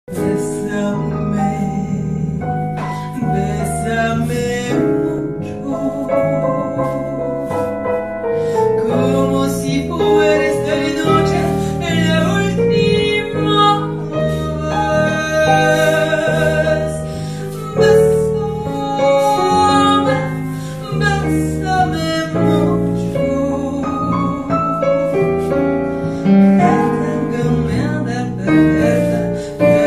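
A woman singing live into a microphone, accompanied by a keyboard playing chords over a steady bass line.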